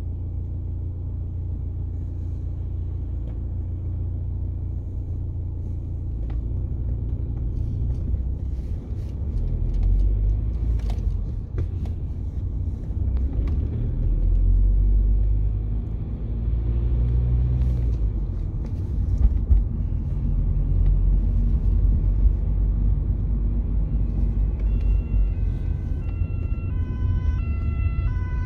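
Low road and engine rumble inside a moving car's cabin, swelling and easing several times. About four seconds before the end, an approaching ambulance's two-tone siren comes in, stepping back and forth between two pitches and growing louder.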